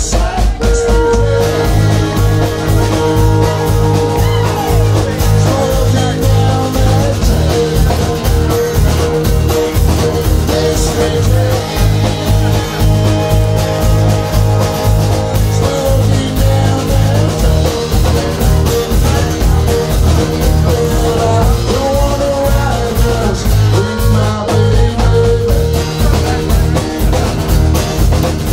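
Live blues-rock band playing an instrumental break: harmonica wailing held and bending notes over strummed acoustic guitar, electric bass and a drum kit keeping a steady driving beat.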